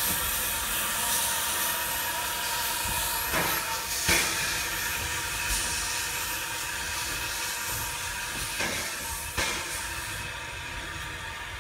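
Small steam locomotive moving off along the track, with steam hissing low at its front and a few short clanks. The sound fades slowly as the engine draws away.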